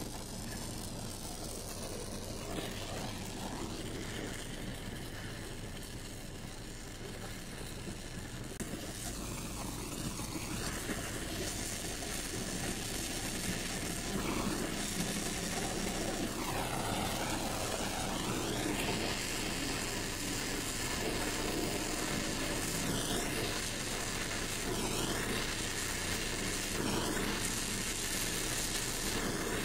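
Oxy-fuel torch flame hissing steadily as it heats the joint of a thin aluminium tube and melts an aluminium filler rod into it, growing louder about ten seconds in.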